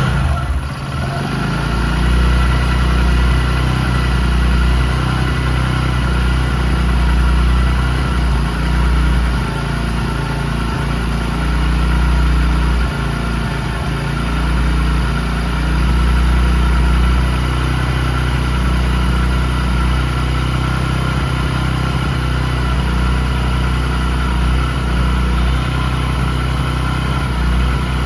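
Bajaj Discover motorcycle's single-cylinder engine running steadily with the throttle held slightly open, its level swelling a little now and then. It has a freshly replaced timing chain, and the loud noise it made before is no longer there.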